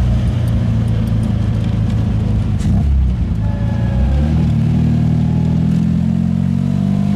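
1966 MGB's 1.8-litre four-cylinder engine running as the car is driven, heard from the cockpit; about four seconds in the engine note starts climbing steadily as the car accelerates.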